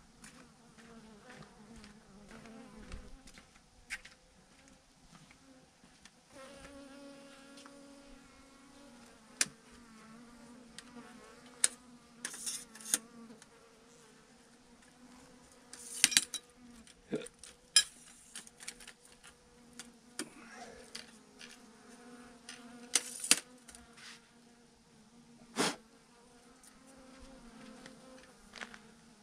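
A clustered swarm of bees buzzing: a steady low hum with single bees droning close by. A scattering of sharp taps and crackles through the middle and later part stands out louder than the hum.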